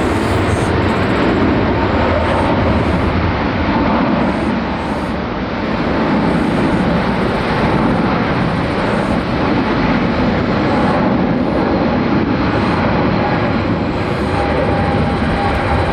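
Jet airliner engines, a loud steady rush of noise that holds throughout.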